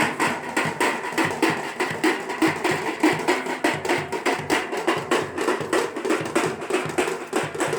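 Fast, steady drumming: sharp percussive strokes at about five a second, in an even rhythm.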